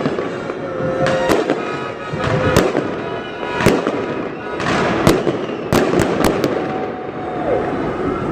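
Fireworks going off: a series of sharp bangs at irregular intervals, with a quick run of four close together about six seconds in, over a continuous background of distant bangs and crackle.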